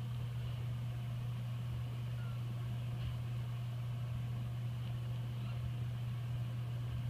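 Steady low hum with a light hiss above it, unchanging throughout.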